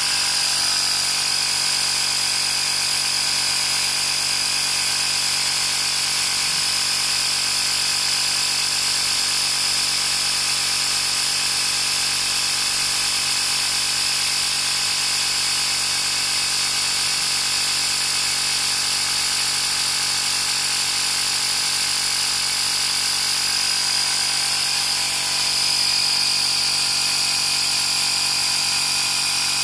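Workzone Titanium 20V cordless air compressor running steadily while it pumps air into a car tyre through the valve, a constant motor-and-pump buzz.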